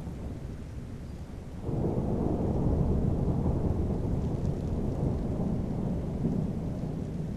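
Rain with a low rumble of thunder that swells in suddenly about two seconds in and rolls on, slowly easing.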